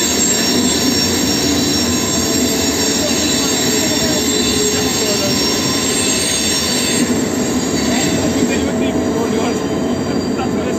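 Locomotive running through a rail tunnel, heard from inside its cab: a steady loud rumble of the running gear with high-pitched wheel squeal from the wheels pressing against the rail on the curve. The squeal thins out about seven seconds in as the track straightens.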